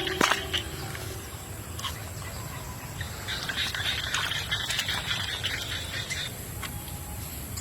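Quiet outdoor background with a low rumble, and a raspy, high-pitched animal call lasting about three seconds, from about three to six seconds in.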